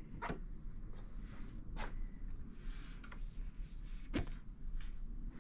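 Faint handling sounds: a few scattered soft clicks and rustles as a hand grips and flexes the Hypalon rubber luggage loops bolted to a metal motorcycle rack, over a low steady hum.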